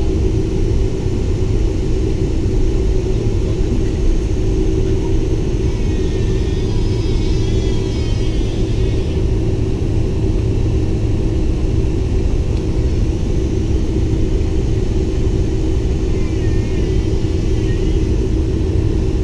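Boeing 747-400 Combi's General Electric CF6 turbofans at low taxi thrust, heard inside the cabin: a steady rumble with a steady hum.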